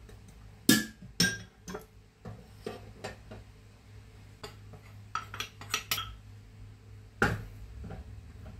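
A metal spoon and a ceramic bowl clinking and knocking against a stainless steel mixing bowl as flour is tipped in and stirred: a string of separate sharp clinks, the loudest about seven seconds in.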